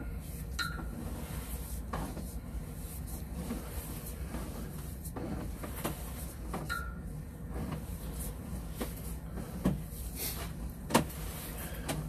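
Sewer inspection camera push cable being pulled back out of the drain line, with scattered knocks and rattles over a steady low hum, and two sharper knocks near the end.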